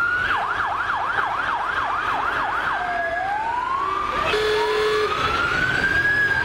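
Electronic emergency-vehicle siren. A rising wail switches to a fast yelp of about three sweeps a second for a couple of seconds, then goes back to long rising and falling wails. A short steady horn blast sounds about four seconds in.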